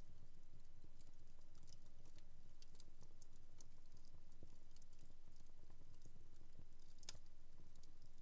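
Wood fire in a fireplace crackling: quiet, irregular small pops and snaps, one sharper pop a little after seven seconds in, over a low steady hum.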